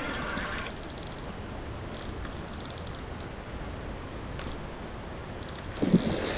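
Fishing reel clicking and winding while playing a big Siamese carp, over a steady hiss of rain. A dull thump about six seconds in.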